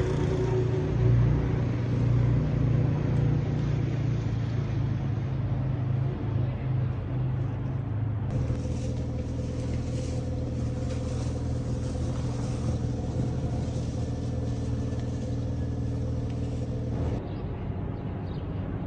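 A steady low engine rumble with a constant hum, changing character abruptly twice, about eight and seventeen seconds in.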